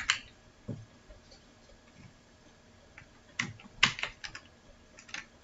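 Scattered computer keystrokes: a dozen or so irregular clicks, some with a soft knock, bunched together around the middle, over faint room hum.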